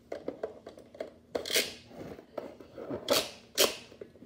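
Plastic clicks and knocks from a Nerf blaster being loaded and handled, with three short noisy swishes: one about a second and a half in and two close together near the end.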